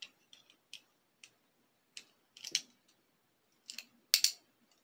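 Irregular sharp plastic clicks and scrapes from Beyblade launchers and ripcords being handled, with the loudest clicks a little after four seconds in.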